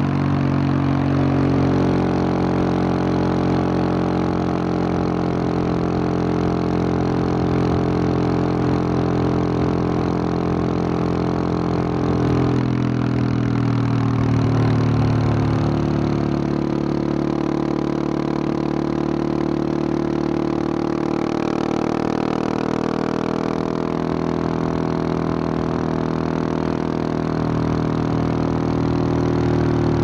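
Single-cylinder engine of a 2021 Husqvarna 701 Supermoto with a Wings aftermarket exhaust, running under way at steady road revs. Its note shifts about twelve seconds in and swells briefly a few seconds later.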